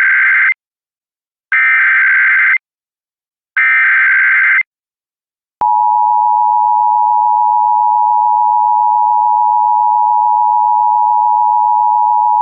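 Emergency Alert System alert opening. First come SAME header data bursts: the end of one and two more full ones, each buzzing about a second long with about a second's pause between. Then, about five and a half seconds in, the loud, steady EAS two-tone attention signal (853 and 960 Hz) starts and holds.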